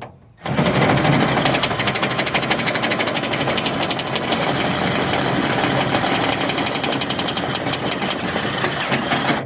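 Power drill running under load, its bit cutting through the steel of a door to enlarge the lock-cylinder hole, with a rapid chattering rattle. It starts about half a second in and stops just before the end.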